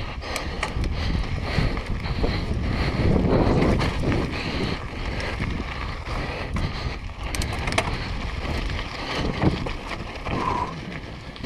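Wind buffeting the camera microphone on a downhill mountain bike riding fast down a dirt and loose-gravel trail, with tyres crunching over rock and many short rattling clicks from the bike.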